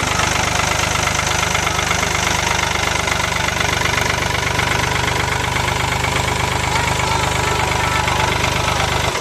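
A vehicle engine running steadily with a rough, rattling texture.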